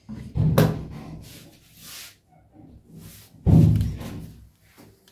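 Two dull thumps about three seconds apart, the first with a sharp knock, as a kitchen knife and tomato halves are handled and set down on a plastic cutting board and wooden table.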